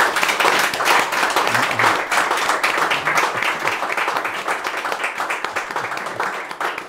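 Audience applauding: many hands clapping in a dense, steady patter, which cuts off suddenly at the end.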